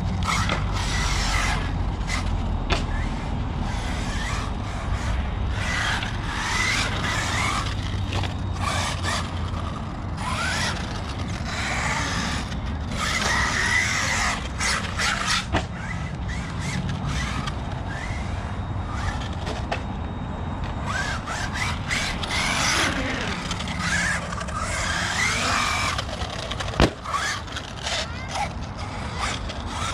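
1/8-scale ARRMA Notorious RC car driven hard: its electric motor whining up and down and its tyres squealing and scraping on concrete, with a few sharp knocks of landings or hits, the sharpest near the end.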